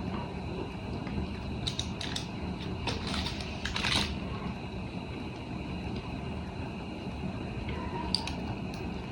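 Scattered light taps and clicks of a knife and hands cutting a block of cream cheese into small cubes, with a short burst of rustling and clicking about four seconds in. A steady low hum runs underneath.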